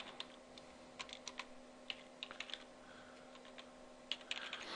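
Typing on a computer keyboard: faint, irregular key clicks in short runs, over a low steady hum.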